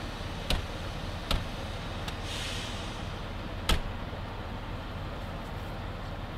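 A vehicle engine idling with a steady low rumble, broken by three sharp clicks, the last about four seconds in, with a short hiss between the second and third.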